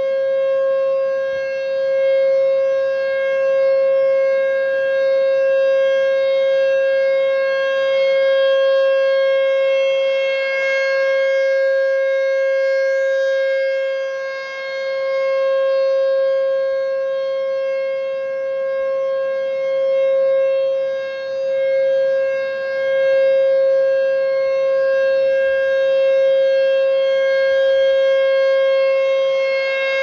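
American Signal T-128 outdoor warning siren sounding a steady, unbroken tone for its monthly test. The loudness swells and dips as the rotating horn sweeps past and away.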